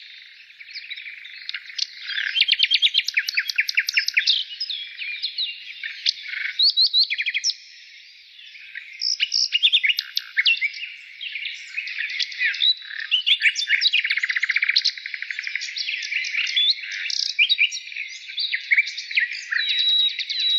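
Many small birds chirping and trilling at once in a dense, overlapping chorus of short, quick, high calls, with a brief lull about eight seconds in.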